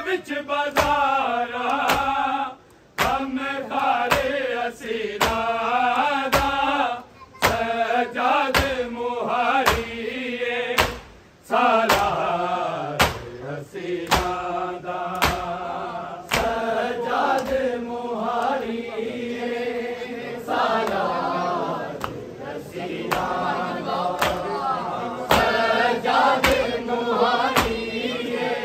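Men's voices chanting a noha, a Shia mourning lament, together in a steady sung line, over an even beat of sharp slaps a little under two a second: matam, hands striking chests in time with the lament.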